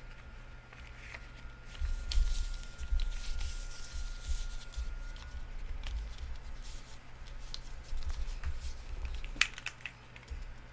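Handling noise: scattered light clicks, rubbing and irregular soft thumps, as a 65% mechanical keyboard is moved and handled.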